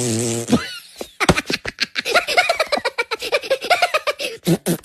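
A short low buzzing tone ends about half a second in, then a person giggles in quick, high-pitched bursts.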